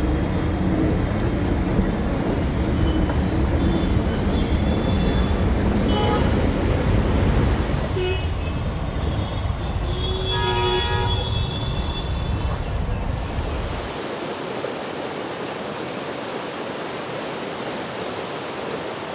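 Low rumbling street noise in floodwater with a vehicle horn tooting briefly around eight and ten seconds in. At about thirteen seconds it cuts to the steady rush of a swollen, muddy flood stream pouring over a weir.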